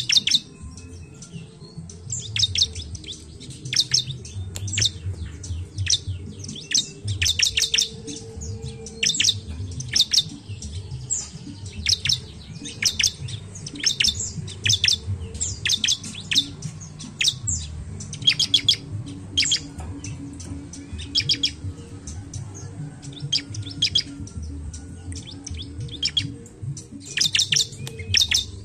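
Bar-winged prinia (ciblek) calling: sharp, high chirps given in quick clusters, repeated every second or so.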